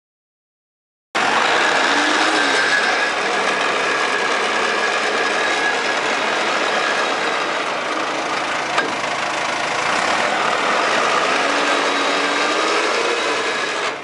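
JCB 3CX backhoe loader's diesel engine running steadily during a transmission test, starting abruptly about a second in, with slight rises and falls in pitch.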